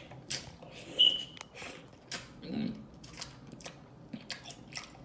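Close-up wet chewing and lip-smacking of seafood in butter sauce: a run of short sharp smacks and clicks, with one loud short squeaky smack about a second in.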